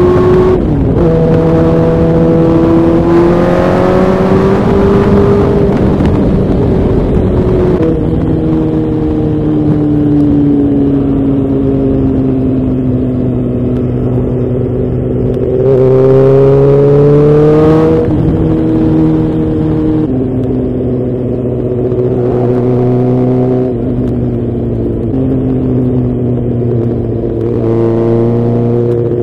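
Suzuki GSX-R600's inline-four engine running on the road, its pitch climbing and dropping sharply several times as it changes gear. In the middle it winds down slowly as the bike eases off, then picks up again. Wind noise rushes underneath.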